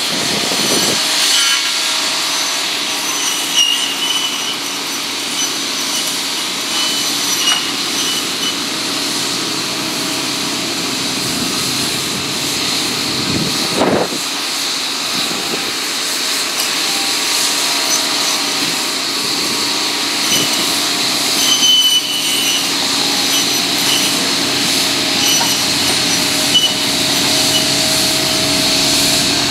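Tractor-mounted McConnel boom saw with circular blades spinning at speed and cutting through hedgerow branches, a steady high whine and rasp over the tractor's engine, with brief louder bursts several times as the blades bite into wood.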